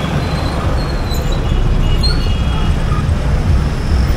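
Dense street traffic of motorbikes, auto-rickshaws and cars heard from a moving scooter: a steady low rumble of engines and road noise, with a few brief high-pitched squeals.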